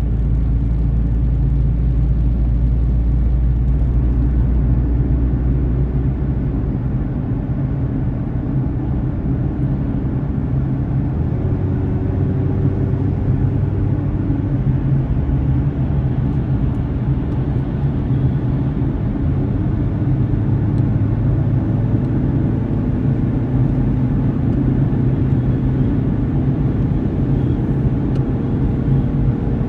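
Car on the move: a steady low rumble of engine and tyre noise, with a faint engine tone drifting up and down in pitch. The deepest part of the rumble eases about seven seconds in.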